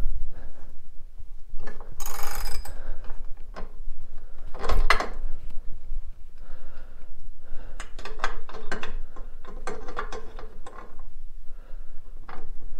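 Ratchet wrench clicking in short runs while rusted studs are backed out of a 1953 Harley-Davidson K model's sand-cast aluminum crankcase, mixed with clanks of steel tools against the case. The clicking is busiest in the second half.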